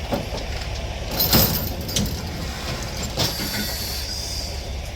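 A semi-truck's engine running low while it tows a steam locomotive up a ramp track by chain, with four sharp metal clanks and knocks, the loudest about a second and a half in.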